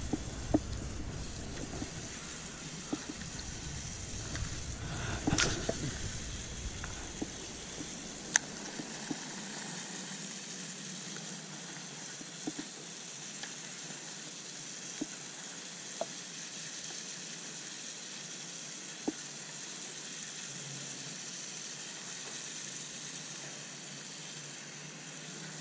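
Baitcasting reel being cranked to bring in a cast lure: a steady soft hiss with scattered faint clicks and taps. A low rumble runs under it for the first several seconds, then fades out.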